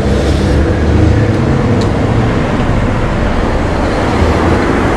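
Steady rush of riding noise from a Super73 Z1 electric bike under way: wind over the body-worn camera's microphone and tyre noise on the road.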